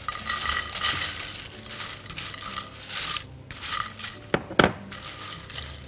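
Sheets of dry, brittle ruqaq dough crackling and rustling as they are broken and laid into a serving dish, followed by two sharp clinks against the dish about four and a half seconds in.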